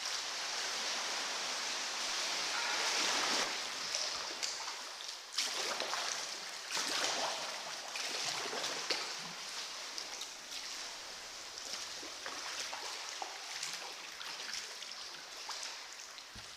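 Sea water splashing and washing around a paddled sea kayak, swelling in uneven surges every second or two.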